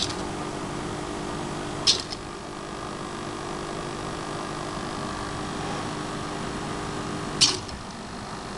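Hobby servo motors of a small robot arm humming steadily with a few steady tones as they hold position, with three sharp laptop touchpad button clicks: one at the very start, one about two seconds in and one about seven and a half seconds in. The servo hum breaks off and changes after the last click as the arm is sent to a new position.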